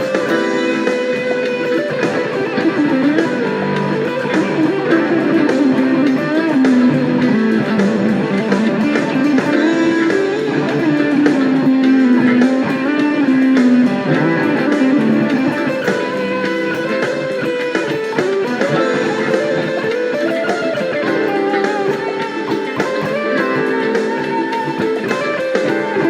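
Electric guitar played through a Dunlop Fuzz Face Mini fuzz pedal, improvising a lead line in A minor with sustained fuzz-distorted notes that bend and slide in pitch.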